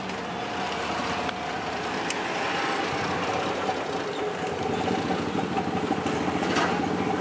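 Auto-rickshaw's small engine running under way, with road and traffic noise heard from inside the open-sided cab, gradually getting louder.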